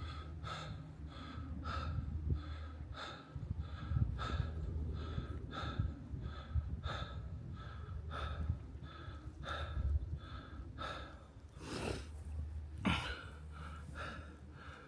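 A man panting hard in quick, regular breaths, about one every half second to second, out of breath from climbing a steep hill on foot.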